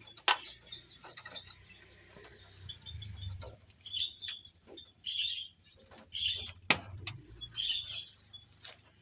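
Ioras (cipoh) chirping in short bursts of high calls, with two sharp knocks, one near the start and one about two-thirds through, louder than the calls.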